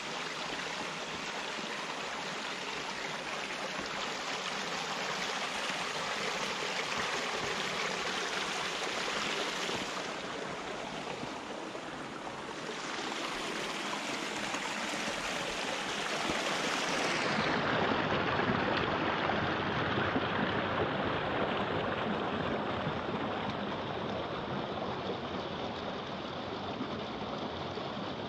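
Steady rush of flowing creek water. A little past halfway the sound turns duller and fuller, with more low rumble.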